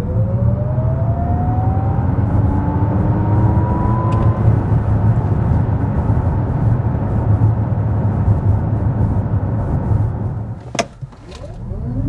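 Lexus RZ 450e electric drive motors heard from the cabin under hard acceleration: a whine that rises steadily in pitch for about four seconds, over tyre and road rumble. The noise falls away briefly with a sharp click near the end, then the whine starts rising again as the car launches a second time.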